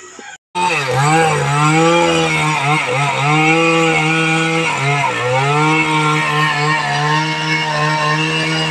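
Chainsaw running at high revs, its pitch sagging and recovering a few times as it bites into a palm trunk. It starts suddenly about half a second in.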